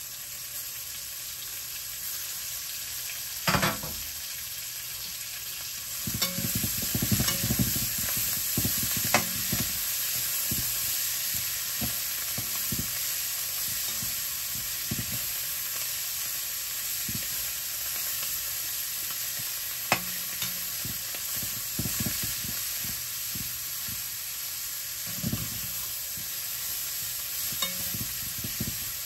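Food frying in oil in a cooking pan, sizzling steadily, while it is stirred now and then, the utensil scraping and knocking against the pan. The stirring is busiest from about six to ten seconds in, with a single sharp clink later.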